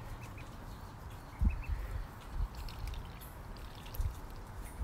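Soft, steady trickle of running water, with a few faint short chirps early on and a couple of brief low bumps.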